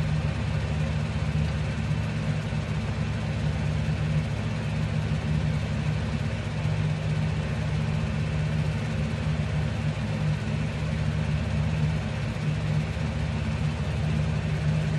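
A steady low hum with no other sound standing out.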